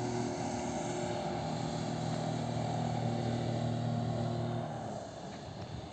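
Motorboat engine running steadily as the boat speeds across the lake, dying away about five seconds in.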